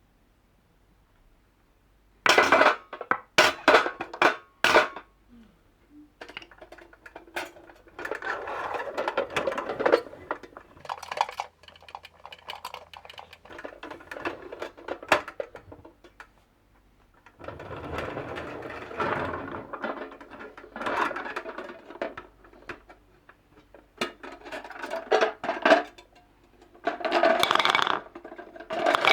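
Wooden balls rolling and clattering down a HABA marble run. After about two seconds of silence come a few sharp knocks, then repeated stretches of rattling as the balls roll and drop through the track.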